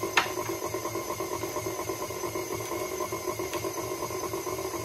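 Electric stand mixer running steadily, its flat beater turning through liquid cake batter of beaten egg, sugar, oil and milk, with an even pulsing hum. A single sharp tick sounds just after the start.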